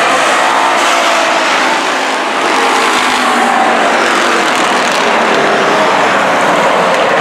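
A pack of dirt-track stock cars racing around an oval: many race car engines running together, loud and steady, their pitches overlapping.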